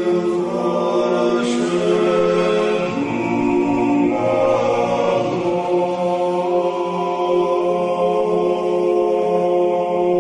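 Unaccompanied choir singing a slow sacred chant in several voices. The upper voices move between long held notes over a steady low drone that never breaks.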